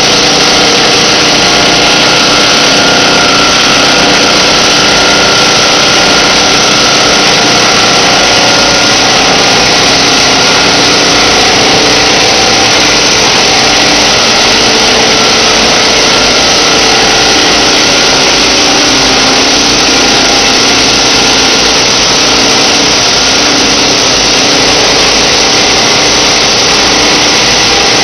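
Machinery of a PET bottle recycling and washing line running: electric-motor-driven screw conveyors and belt drives making a loud, steady mechanical din with a few faint steady hums in it.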